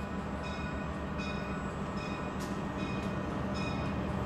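Budd RDC rail diesel car running, a steady low diesel rumble, with a high ringing repeating about twice a second over it.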